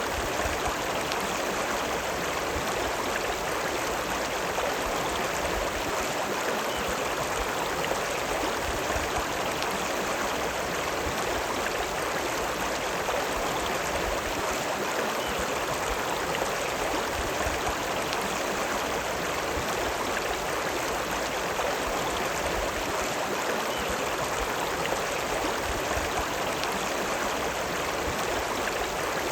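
A river running: a steady, even rush of flowing water.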